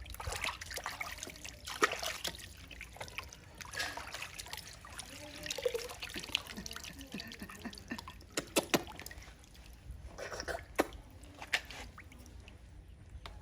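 Water trickling and splashing during a baby monkey's bath, with many short sharp splashes.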